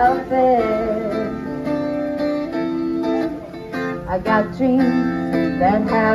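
A woman singing live and strumming an acoustic guitar into a microphone, amplified through the stage's speakers.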